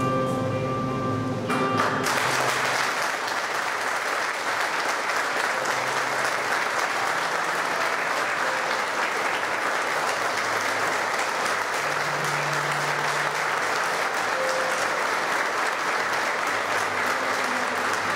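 Music playing, then an audience breaks into steady applause about two seconds in that lasts to the end, with the music continuing faintly underneath.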